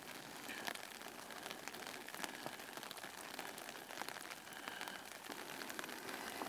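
Steady rainfall, faint, with scattered individual drop ticks over an even hiss.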